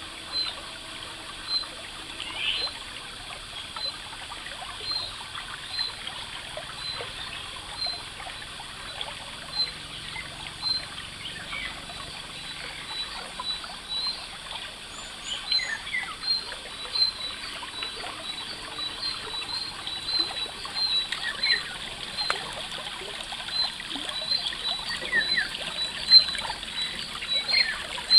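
A small stream trickling over stones, with birds chirping. One bird repeats a short high note over and over, roughly once a second.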